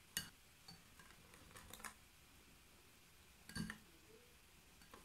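Faint clicks of a wire whisk against a glass bowl of thin batter: a few light, isolated ticks, the loudest about three and a half seconds in.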